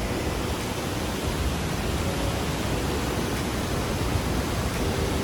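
Ozone Falls in heavy flow after a day of rain: a steady, even rush of falling water.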